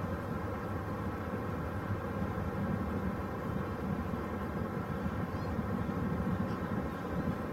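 Steady low rumble of outdoor background noise, with a few faint, short, high bird chirps about five and a half and six and a half seconds in.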